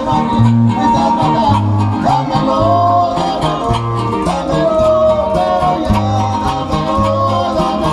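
A huasteco trio playing a son huasteco: the violin carries the melody over strummed jarana and huapanguera. The huapanguera's bass notes fall about once a second.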